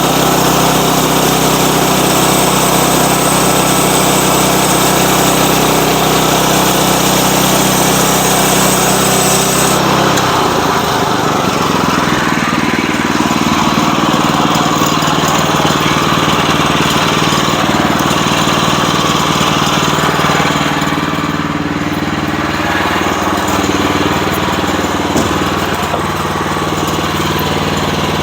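Sawmill's engine running steadily. About ten seconds in its steady pitch drops suddenly and the sound turns rougher and less even.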